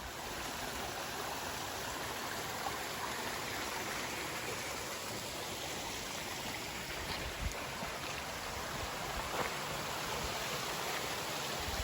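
A steady, even rushing noise, with a few faint clicks.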